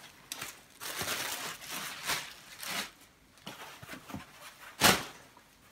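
Plastic bags wrapping backpacks rustling and crinkling as they are handled in a cardboard box, with one short, sharp, louder noise about five seconds in.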